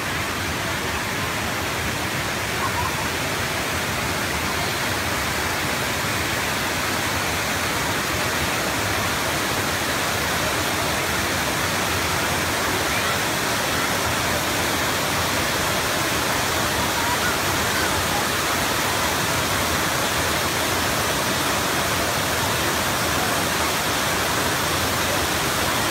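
Wide, tiered waterfall pouring over rock ledges into a pool: a steady, even rush of falling water, growing slightly louder toward the end.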